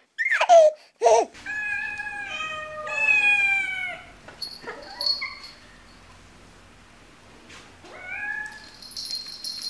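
Domestic cats meowing: a run of meows, one long and falling, then after a pause a single rising meow. In the first second there is a short burst of a child's laughter.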